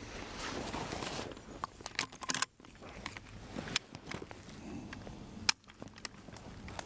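Rifle being handled with a few sharp metallic clicks from its action, over rustling of clothing and steps on the forest floor.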